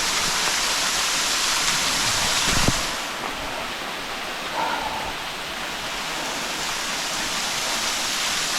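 Waterfall rushing steadily, running full after recent rains. A single knock comes about a third of the way in, after which the rush is a little softer.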